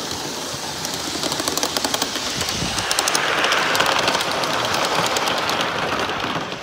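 A 1/32 scale live-steam model goods train running past: rapid, evenly spaced clicking in the first few seconds, then the rushing roll of the wagon wheels on the rails, loudest midway and fading near the end.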